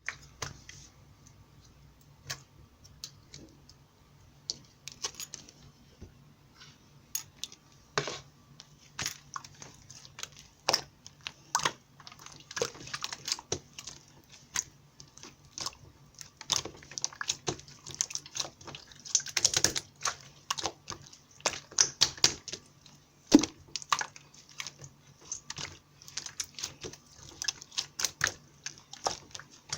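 Irregular sharp clicks and taps, like typing or tapping on a hard surface, scattered at first and coming thicker and louder from about halfway through, over a faint steady hum.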